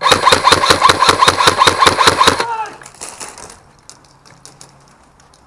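Airsoft electric gun firing a rapid full-auto burst of evenly spaced shots for about two and a half seconds, its motor and gearbox whirring under the shots, then a falling whine as the motor spins down.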